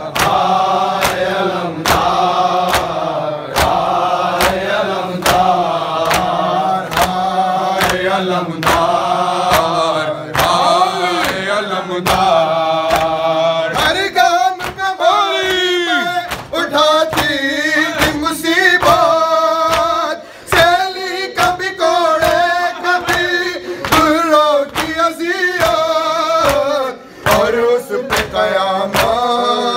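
Male voices chanting an Urdu noha, a Shia lament for Karbala. Sharp, steady slaps about every two-thirds of a second keep the beat: the matam chest-beating that goes with a noha.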